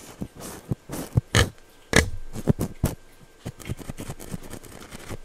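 Close-up ASMR tapping and rubbing: a handheld object dabbed against the microphone in irregular taps and scratchy swipes, loudest in a few knocks about one to two seconds in.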